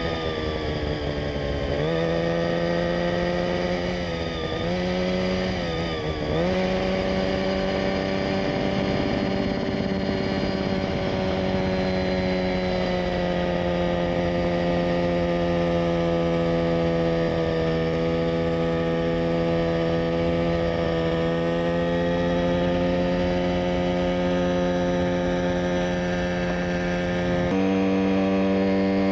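Mosquito Air homebuilt helicopter's engine and rotor running in flight, heard from onboard. The engine speed dips and jumps back up twice in the first few seconds as the pilot feathers a very sensitive throttle, holding just a little power on, then it settles into a steady drone. Near the end the tone shifts suddenly.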